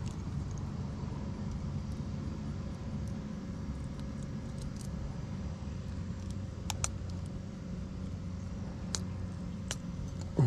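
A steady low mechanical hum, as of an engine or motor running, with a few faint clicks in the second half.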